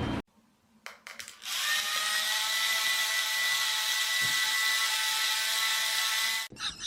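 A few clicks, then a small high-speed motor, like a power drill or similar power tool, runs with a steady high whine for about five seconds before cutting off abruptly.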